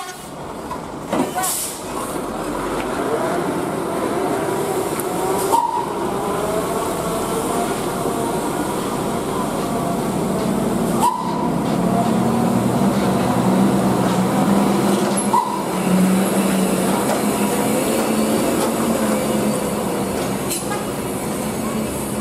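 Heavy diesel dump truck's engine under load, labouring slowly up a steep hairpin climb: a steady low drone that grows a little stronger about halfway through.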